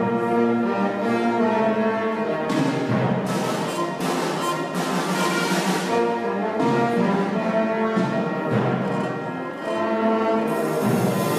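Loud orchestral band music with brass, playing full sustained chords.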